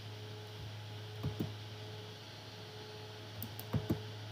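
Computer mouse clicking: two quick pairs of clicks about two and a half seconds apart, over a steady low electrical hum.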